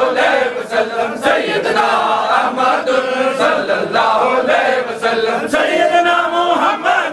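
A group of men chanting dhikr together, a repeated rhythmic devotional phrase with a sharp accent about once a second.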